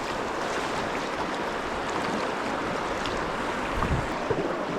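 Steady rush of flowing river water around kayaks, with a brief low thump about four seconds in.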